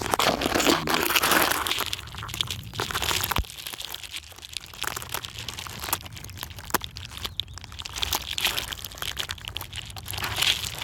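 Close rustling and crackling of gorse branches being pushed aside, with many small snaps and handling noise on the phone's microphone, loudest in the first two seconds.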